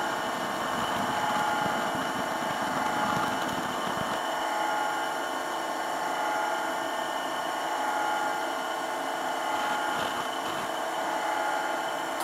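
Welding positioner's electric motor and gear drive running fast, turning the pipe: a steady whine made of several tones. A little extra low rumble fades out about four seconds in.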